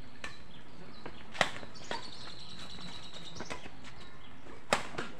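Badminton rackets hitting a shuttlecock during a doubles rally: sharp snapping hits, two loud ones about three seconds apart with fainter ones between.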